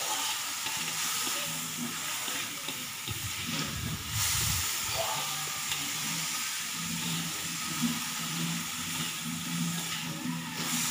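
Shredded cabbage, mustard greens and mixed vegetables sizzling steadily in oil in a wok as they are stir-fried with a metal spatula.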